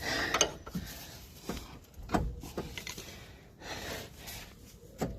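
Scattered knocks, clicks and scrapes of hand tools and a ball-joint press tool being handled, the sharpest knocks about two seconds in and just before the end.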